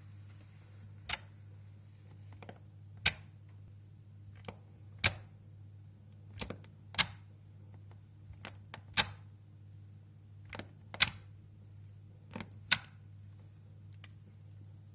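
Slime being pressed and played with, giving sharp popping clicks about every two seconds with fainter ones between them, over a steady low hum.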